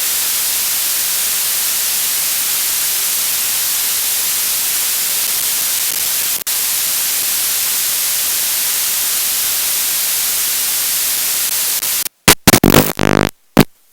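Steady, loud hiss of static, typical of an analog FPV video receiver's recorded audio with no sound on the channel, with a brief dropout about six seconds in. Near the end the hiss cuts off and gives way to loud, choppy, stuttering bursts of pitched sound.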